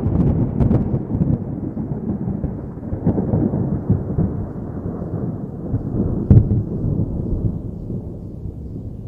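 Thunder rumbling low and loud, with crackles in the first second and a sharp crack about six seconds in, then slowly fading away.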